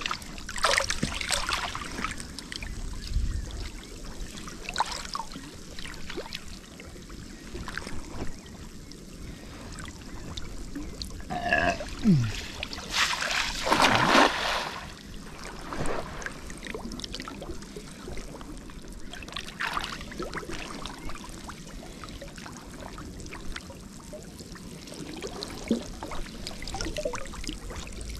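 Water splashing and trickling in short, scattered bursts, with a longer, louder splash about thirteen seconds in.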